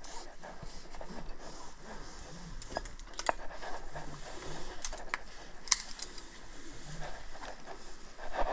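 Climbing hardware on a harness clinking: aluminium carabiners and gear knocking and clicking together, with a few sharp clicks about three seconds in and around five to six seconds, over a rustle of rope and clothing.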